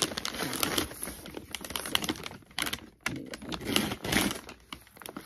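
Brown kraft paper packaging crinkling and rustling in the hands as it is pulled open, a dense run of irregular crackles with brief pauses.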